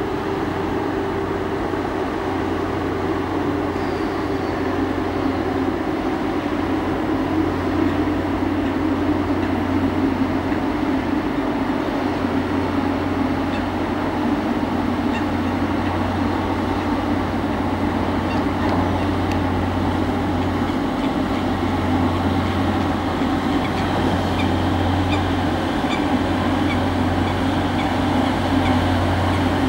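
Boat engine running steadily: a low, even drone with a constant deep hum underneath.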